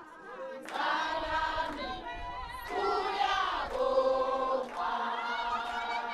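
A group of people singing together in chorus, several voices holding notes at once, coming in loudly just under a second in.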